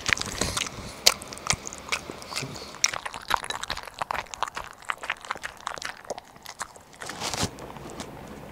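An elderly pug eating soft food from a glass bowl: many short, irregular wet smacks and clicks of chewing and licking, thinning out near the end.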